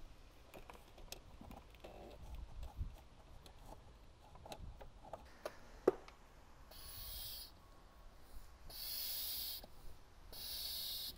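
Mityvac MV7201 fluid extractor's hand vacuum pump being stroked: three breathy whooshes of air, about two seconds apart, as the tank is pumped down to draw engine oil up the dipstick tube. Before them come faint clicks and rustles of the hose being handled and one sharp click.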